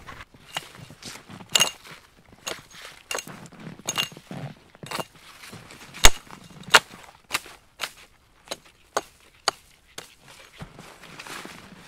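Hatchet chopping the boughs off a felled spruce trunk: a run of sharp, irregular strikes, roughly one every half second, some much louder than others.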